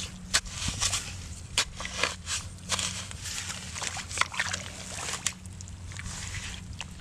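Hands scooping and digging in a muddy, water-filled hole, giving irregular wet sloshes, splashes and squelches, most of them in the first five seconds.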